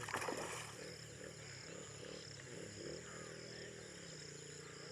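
Night chorus by the water: frogs croaking in a regular beat, about two croaks a second, over the steady high chirring of insects. A brief rustling noise in the first half-second, and a low steady hum comes in about three seconds in.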